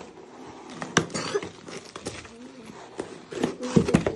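Scattered knocks and rustles from gift packaging being handled and opened, with short bits of voices.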